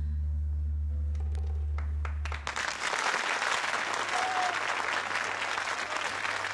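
The song's accompaniment ends on a held low chord with a few plucked notes, cutting off about two and a half seconds in, and an audience breaks into applause.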